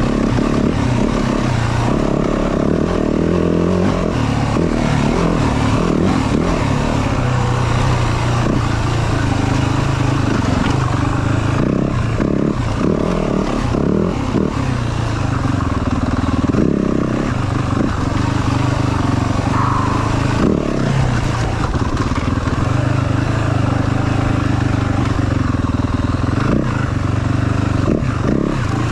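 Yamaha WR450F's single-cylinder four-stroke engine running under a rider on an off-road trail, its revs rising and falling with the throttle. Scattered knocks and clatter come through from the bike over rough ground.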